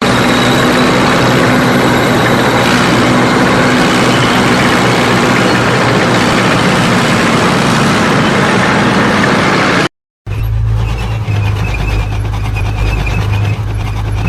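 Tank driving: for about ten seconds, a loud, dense clatter of engine and track noise that cuts off suddenly. After a short silence, a second take follows, a deep, steady engine rumble.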